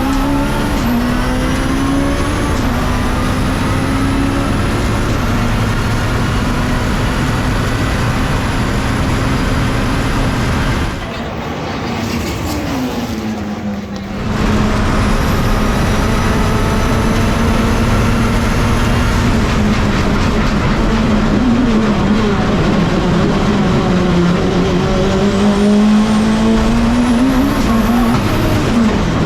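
Race car engine running loud on a circuit, its pitch rising and falling with the revs, with a brief drop in loudness a little under halfway through.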